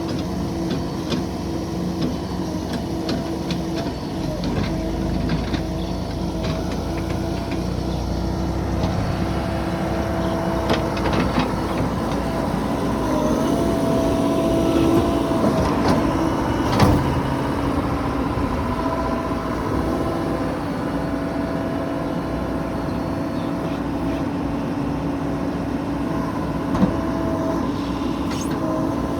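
A JCB 3DX backhoe loader's diesel engine running steadily as it loads mud, with a sharp clank about 17 seconds in and a smaller one near the end.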